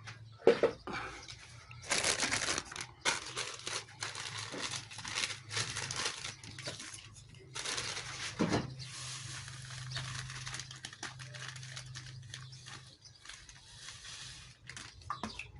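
Crinkling and rustling in bursts as table salt is handled and added to the water that will serve as the welder's salt-water electrolyte.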